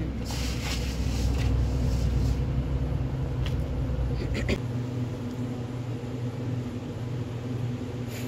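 A low rumble that stops about four and a half seconds in, over a steady low hum, with a couple of light clinks from a steel plate being handled over a plastic tub just before the rumble ends.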